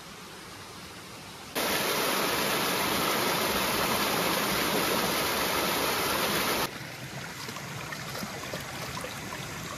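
Water gushing from a rusty pipe outlet and cascading over rocks in a stream: a loud, steady rush that cuts in about a second and a half in and cuts off sharply about five seconds later. Before and after it, a much quieter outdoor background of running water.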